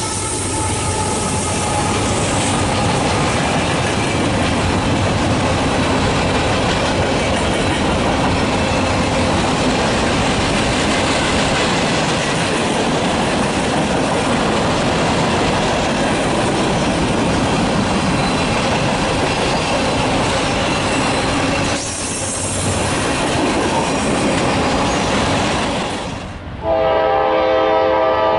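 Freight train passing, with a steady rumble and clatter of wheels on rail and the tail of a horn fading out at the start. Near the end it cuts to a loud locomotive air horn sounding a chord of several notes.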